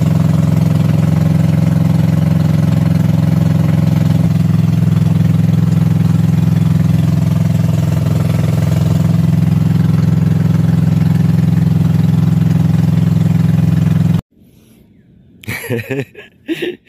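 Small fishing boat's engine running steadily under way, a loud even hum. It cuts off abruptly about fourteen seconds in, and a few short sounds follow near the end.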